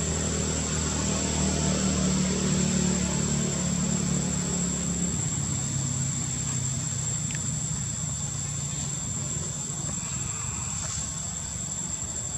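Low engine hum, strongest for the first few seconds and then fading away, with a steady high-pitched tone throughout.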